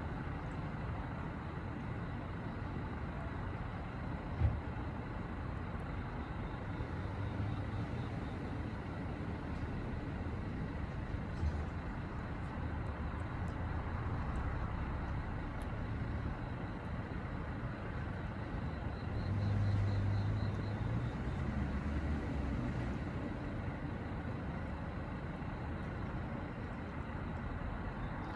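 Steady hum of distant road traffic, swelling for a couple of seconds near the middle as a vehicle passes, with a single dull thump a few seconds in and a faint high pulsing trill now and then.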